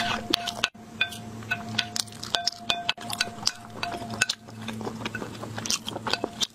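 Wooden spoon clinking and scraping on a porcelain plate while leftover sauce and minced meat are gathered, with close-up chewing and mouth clicks.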